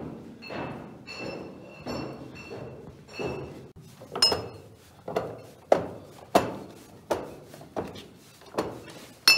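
Footsteps on a cellar floor, then from about four seconds in a quick run of sharp glassy knocks, nearly two a second: sparkling-wine bottles being given a turn by hand in a wooden riddling rack, each one knocking back into its slot. This is riddling, which works the yeast sediment down into the bottle neck.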